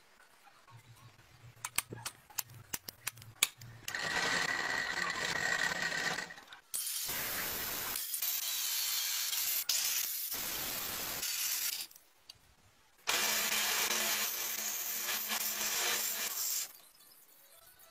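Angle grinder with a cut-off disc cutting through steel strip: loud, even grinding noise in long runs broken by short pauses. Before it, a few light metal clicks and taps.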